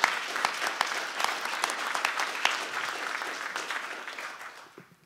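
Audience applauding, a dense patter of many hands clapping that dies away toward the end.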